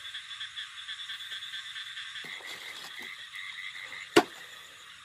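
Chorus of frogs calling at night in quick, evenly repeated notes. A single sharp knock about four seconds in is the loudest sound.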